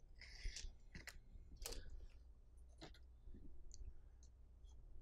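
Faint handling noise of a toothed rubber timing belt and a zip tie being pushed up through a clear plastic printer carriage: a brief rustle, then a few sharp plastic clicks, with softer ticks later.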